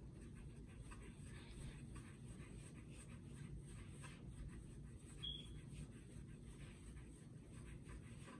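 Faint soft rubbing of a ball of sweet-bread dough rolled in circles under the palm on a bamboo cutting board, over a low steady room hum.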